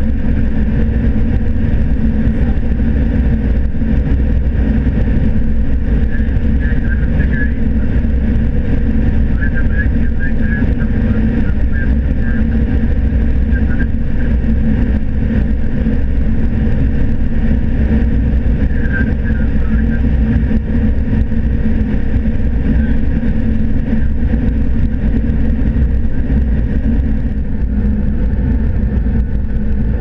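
Steady in-cab drone of a 2012 John Deere S680 combine running under load while harvesting corn with its 12-row 612C corn head. The noise eases slightly near the end.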